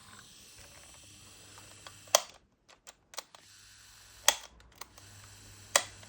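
Three sharp clicks about a second and a half to two seconds apart, as hard plastic parts are handled, with the sound dropping out briefly after the first.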